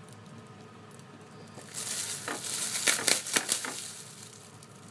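Hands handling food on a cutting board: a crinkling rustle with several sharp clicks, starting about two seconds in and stopping about two seconds later, as carrots are set down on the board.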